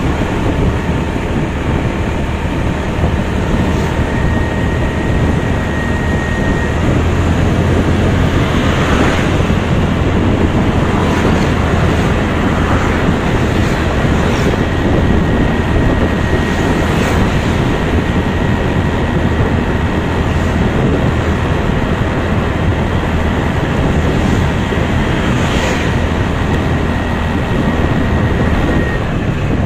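Wind rushing over the microphone of a moving motorbike, with the bike's engine humming low and steady underneath and a thin steady whine that comes and goes.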